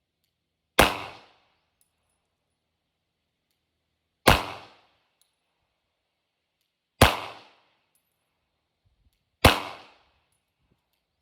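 Four single shots from a Glock 19 9mm pistol, fired slowly at uneven intervals of about three seconds, each a sharp crack with a short echo tail.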